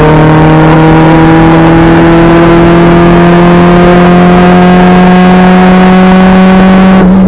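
Honda B18B1 four-cylinder engine in a 1994 Acura Integra, pulling hard under load with its pitch climbing slowly and steadily, then breaking off near the end. It is loud and raw because the exhaust has rusted off after the catalytic converter.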